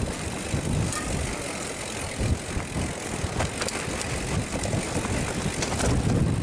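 Mountain bike riding down a rocky trail: a rumble of tyres over stones and dirt, with many sharp clicks and rattles from the bike.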